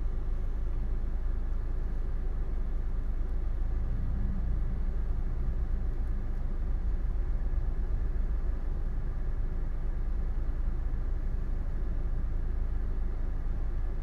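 Steady low rumble of background noise, even throughout, with no distinct stamping knocks.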